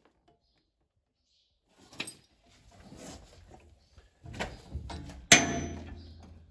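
Metal-on-metal clinks and knocks from work with a puller and ratchet on a stuck pulley. The loudest is a sharp metallic clank about five seconds in that rings briefly.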